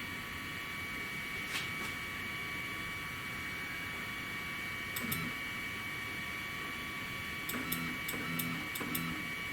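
3018 benchtop CNC router sitting powered up with a steady high whine, its stepper motors held energised. Near the end come five or six quick clicks, each with a short low buzz, as the machine makes small stepped moves.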